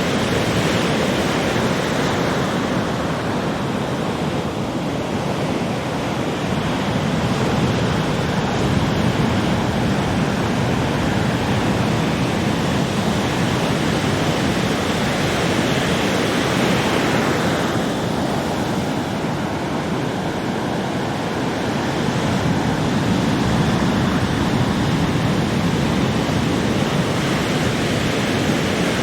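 Heavy ocean surf: big waves breaking one after another in a continuous rumbling roar that swells and eases slowly.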